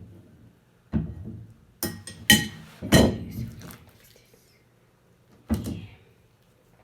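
A utensil knocking and scraping against a bowl while the last of the slime is worked out of the bottom, in a handful of sharp clattering hits; the loudest, about two to three seconds in, rings briefly.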